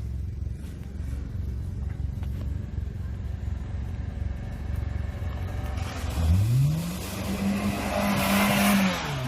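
Opel Corsa engine running at low revs, then revving up sharply about six seconds in and holding high revs for about two seconds, with a loud rushing noise over it. The revs drop away near the end.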